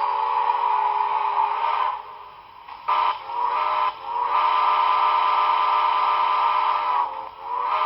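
Recorded steam whistle from the sound decoder of an HO-scale Broadway Limited Milwaukee Road S-3 4-8-4 model: a chime of several tones at once. A long blast ends about two seconds in, a short blast follows around three seconds, then another long blast, and a new blast starts near the end.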